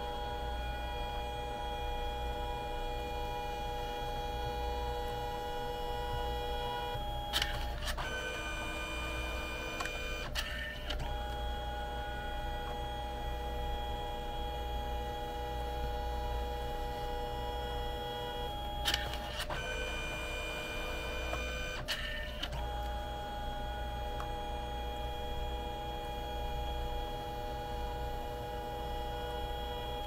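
Canon Selphy CP1300 dye-sublimation photo printer printing: a steady motor whine with several fixed tones, held for about eight seconds at a time. It is broken twice by clicks and a shorter whir of a different pitch as the paper shuttles between colour passes.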